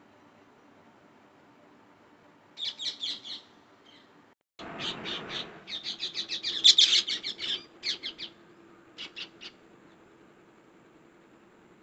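Green parakeets calling: rapid runs of shrill, repeated screeches. A short burst comes a few seconds in, then a longer, louder run, and a couple of brief calls follow later.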